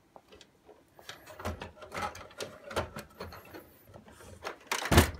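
Plastic housing panels of a Victor Clavia RC-G15MD CD radio-cassette player being handled and pressed together during reassembly: irregular plastic clicks and knocks, with a loud thump near the end.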